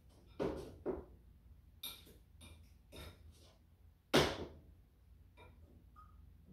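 A spoon clinking and knocking against a saucepan as blueberries and sugar are stirred on the stove: about six separate knocks spread out, the loudest about four seconds in.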